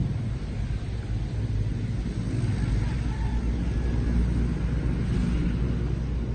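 A steady low rumble, with a fainter outdoor hiss above it.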